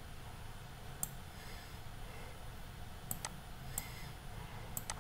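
Computer mouse clicking: a handful of light, separate clicks spaced irregularly, over a faint low hum.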